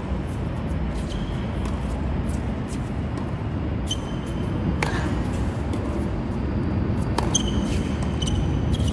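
Tennis practice rally on a hard court: several sharp racket strikes on the ball and ball bounces, with short high squeaks from tennis shoes, over a steady low rumble.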